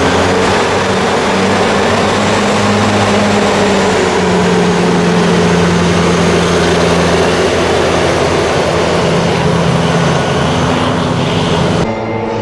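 A Khivus air-cushion hovercraft running loud, the rush of its ducted air propeller over a steady engine drone whose pitch shifts a few times. Near the end the sound drops suddenly to a quieter, duller level.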